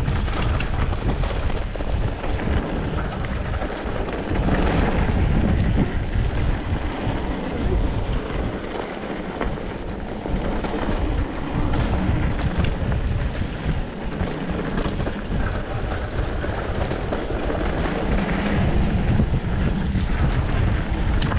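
Wind buffeting the microphone of a camera on a mountain bike running downhill, over a steady low rumble of tyres on a dirt trail, with scattered knocks and rattles.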